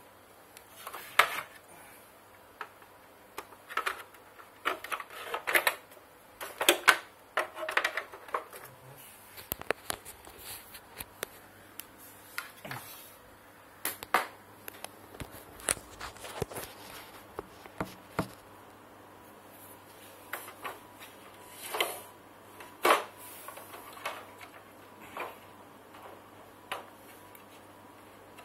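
Scattered clicks, taps and knocks from the plastic base and parts of a tabletop rice grinder being handled and shifted. The louder knocks come in clusters in the first eight seconds and again a little after twenty seconds.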